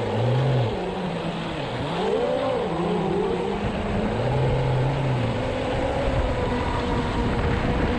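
Brushless electric motors of a Pro Boat Zelos 36 RC catamaran whining at low speed, picked up on board. The pitch rises and falls with the throttle, then holds steadier in the second half, over water and wind noise.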